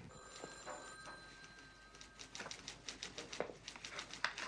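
Typewriter keys clacking in quick, irregular runs, starting about two seconds in.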